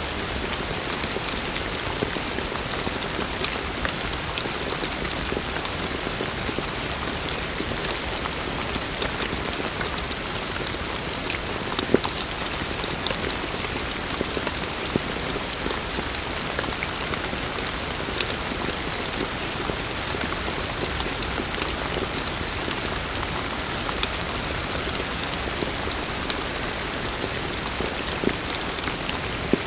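Steady heavy rain, with individual drops ticking sharply on a hard surface, a few louder than the rest.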